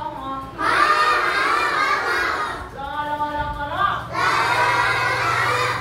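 A class of young children chanting syllables aloud in unison, twice, with a single adult voice reading out between the two: a call-and-response drill in spelling out and reading Thai syllables.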